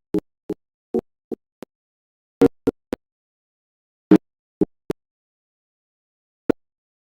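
A popping sound effect: about a dozen short, hollow pops at uneven spacing in dead silence, some in quick runs of two or three, with a longer gap before a single last pop near the end.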